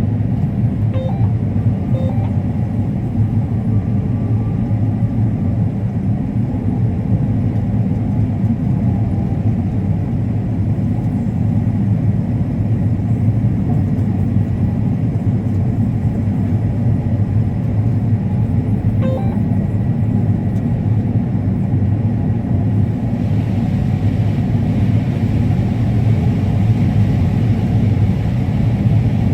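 Combine harvester running steadily while harvesting corn: a constant low engine and machinery rumble, with a little more high hiss from about two-thirds of the way in.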